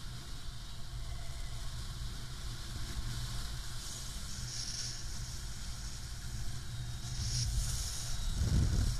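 Wind buffeting a paraglider pilot's camera microphone in flight: a steady low rumble with short hissy gusts, and a stronger gust about eight and a half seconds in.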